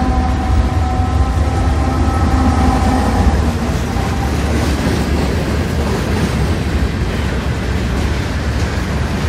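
Florida East Coast Railway diesel freight train passing close by. A locomotive's steady engine hum fades out in the first few seconds, leaving a string of covered hopper cars rolling past with a continuous wheel-on-rail rumble.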